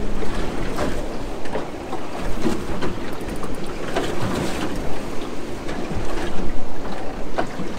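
Wind buffeting the microphone and water slapping against the hull of a small open boat on choppy water, with a few scattered light knocks.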